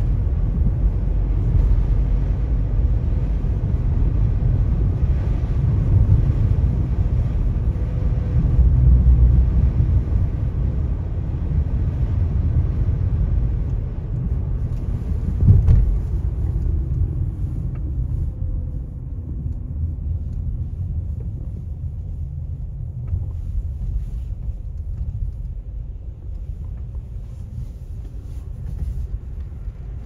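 Road and engine noise of a moving car heard from inside the cabin: a steady low rumble, with a brief louder burst about halfway through, after which the rumble gets somewhat quieter.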